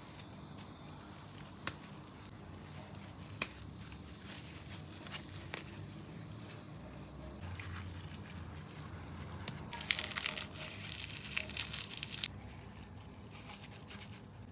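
Crinkling, crackling handling noise, with a few isolated sharp clicks in the first half and a dense burst of crinkling for about two seconds after the middle, over a low steady hum.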